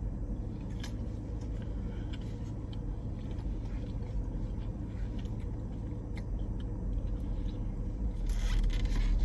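Faint chewing and mouth noises from someone eating a spicy chicken sandwich, as scattered soft clicks over a steady low rumble.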